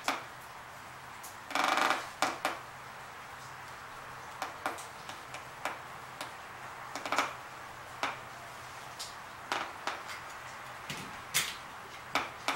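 Handling noises of self-adhesive drywall joint tape being put on a seam: scattered light clicks and rustles, with a longer rustle just under two seconds in. A faint steady low hum runs underneath.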